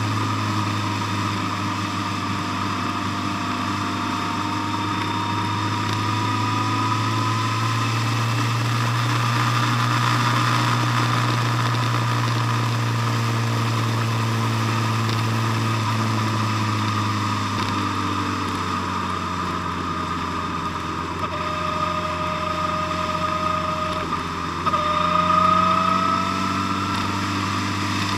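Motorcycle engine running at road speed, its note drifting slowly up and down with the throttle over a haze of road noise. About three seconds before the end the note breaks off briefly, then climbs and gets louder.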